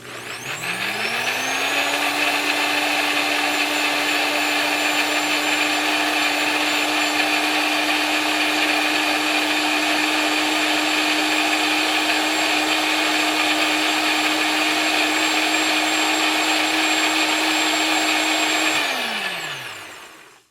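Blender making a smoothie: the motor spins up over about two seconds, runs at a steady whirr, then switches off and winds down with a falling pitch near the end.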